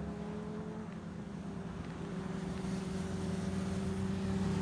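A motor vehicle's engine running with a steady hum that grows louder toward the end.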